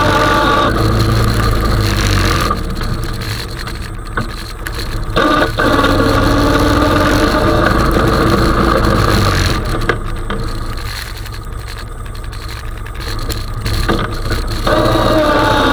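Honda 420 ATV's single-cylinder engine running while pushing a snow plow. The engine speed drops at the start, rises briefly about five seconds in, eases off through quieter stretches, and climbs again near the end.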